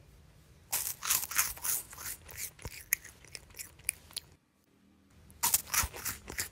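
Crisp, crackly crunching and squishing as a soft yellow fry-shaped stick is dipped and pressed into thick red slime. It comes in two runs of dense crackles, broken by a pause of about a second in the middle.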